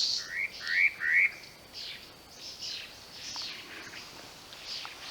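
Spot-breasted parrotbill singing: three quick, loud rising whistles in the first second or so. Fainter high, falling bird notes follow through the rest.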